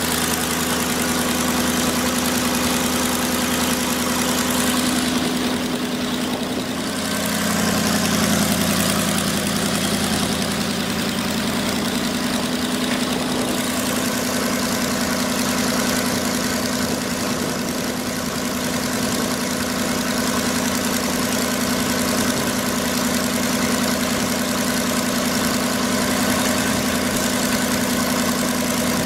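Engine of a 1968 Bucyrus-Erie 45C HydroCrane truck crane idling steadily; about seven seconds in its note shifts and grows slightly louder, then holds steady.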